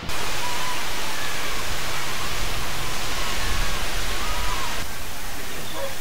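Steady, loud rushing hiss of a waterfall, starting abruptly, with a few faint short chirps over it.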